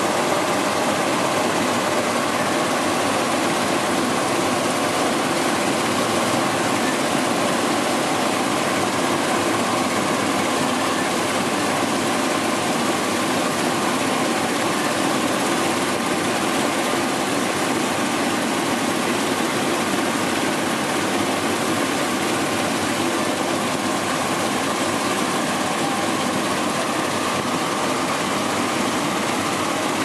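Eddy-current vegetable washing machine running steadily: a constant motor drone mixed with rushing water.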